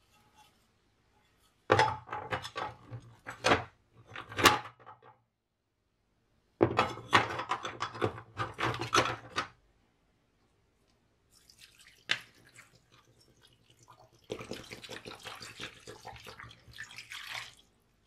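Rusty metal lawn mower parts (muffler, pulley, bolts, springs) clattering and clinking as they are set down in a plastic tub, in two bursts. Then a click and white vinegar poured from a plastic bottle over the parts, splashing steadily for about three seconds to soak off the rust.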